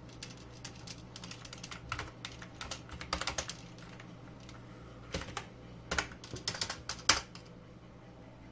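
Typing on a computer keyboard: short irregular bursts of key clicks as a command is entered at a terminal, with one louder key press about seven seconds in.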